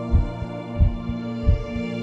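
Background music: sustained chords over a soft, low, even thump about every two-thirds of a second, like a slow heartbeat.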